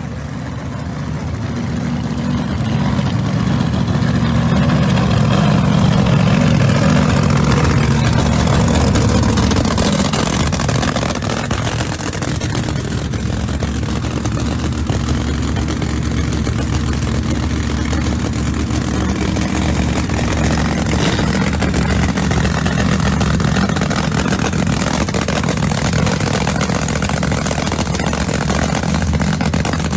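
Drag racing cars' engines running loudly near the start line, swelling over the first few seconds and then holding steady.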